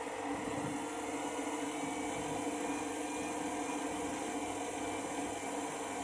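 Front-loading washing machine running with a steady hum through a spin cycle upset by excess suds, its drum packed with foam.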